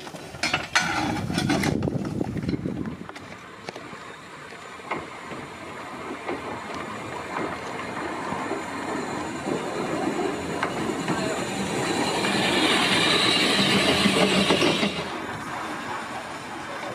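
Narrow-gauge saddle-tank steam locomotive Winifred running light past the carriages, with a steady rail rumble and a steam hiss that grows loudest near the end and then drops away. A few sharp metallic clinks come at the very start.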